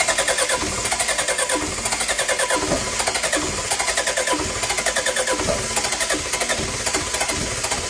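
Diesel generator engine running with an even, rapid pulse.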